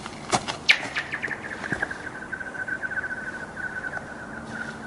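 A rock skipping and sliding across frozen lake ice: a few sharp clicks as it strikes the ice, then a long run of quick, chirping pulses that slowly fall in pitch and fade as it skids away across the ice.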